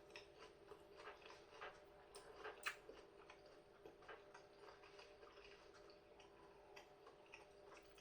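Faint chewing of a mouthful of chicken burger in a bun: small irregular clicks and crunches, the loudest a little over two and a half seconds in, over a faint steady hum.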